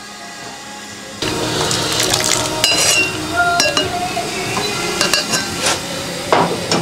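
Broth boiling in an aluminium stock pot, then from about a second in, a metal ladle clinking and scraping against the pot with broth splashing and pouring as a boiled chicken is lifted out into an earthenware bowl.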